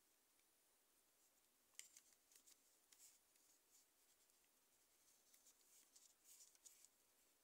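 Faint, irregular crackle and rustle of fingers pressing and smoothing modelling clay onto a small figure, starting about two seconds in.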